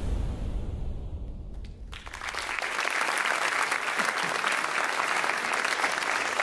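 A steady noise fades out, then about two seconds in a live audience breaks into applause, which keeps going.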